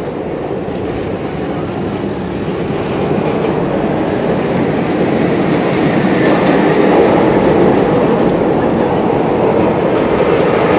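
Dominator, a Bolliger & Mabillard floorless steel roller coaster, its train rushing along the track with a steady rumble. The rumble grows louder as the train passes close overhead about six seconds in.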